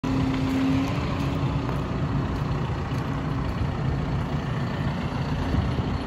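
John Deere 710L backhoe loader's diesel engine running steadily while the backhoe boom and bucket are worked hydraulically, with a steady hum on top of the engine noise.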